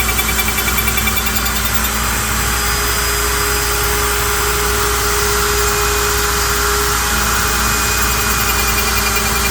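A CNC router spindle and a dust-collection vacuum running together, the router cutting a spinning curly maple blank down to a cue butt sleeve. They make a loud, steady whine over a dense hiss.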